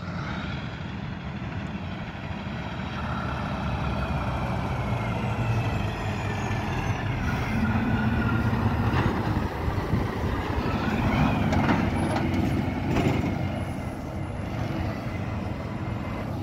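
Diesel semi tractor-trailer approaching and passing close by, its engine growing louder to a peak in the middle and easing off as it moves away. A whining tone rises in pitch about two-thirds of the way through, and there are two brief sharp sounds near the loudest part.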